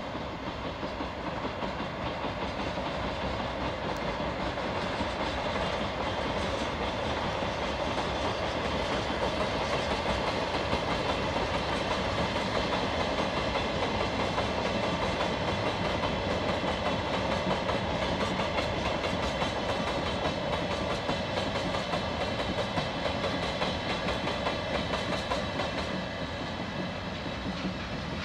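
A Chichibu Railway ore freight train of black hopper wagons rolling steadily past, its steel wheels clattering on the rails in a continuous run. The sound swells a little towards the middle and eases slightly near the end.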